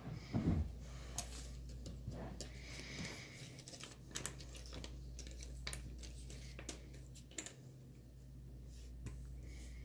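Cardboard jigsaw puzzle pieces being handled and sorted on a tabletop: irregular light clicks and taps as pieces are picked up, set down and slid, with a louder knock about half a second in, over a steady low hum.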